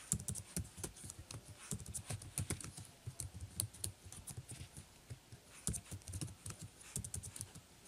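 Typing on a computer keyboard: a run of quick, irregular key clicks as a name is entered, with a short lull about four seconds in.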